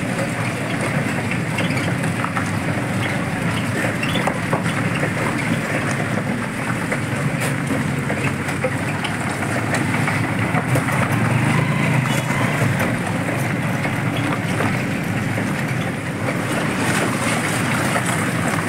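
Steady ride noise heard from aboard a small vehicle moving over a rough gravel lane: a low rumble of tyres on loose stones, with scattered small rattles and clicks.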